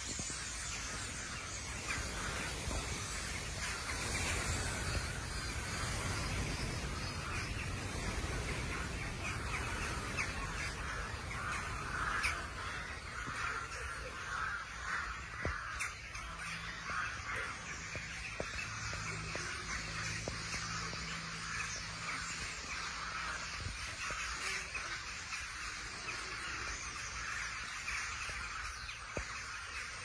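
Large circling flock of corvids calling at once: a dense, continuous chatter of overlapping caws.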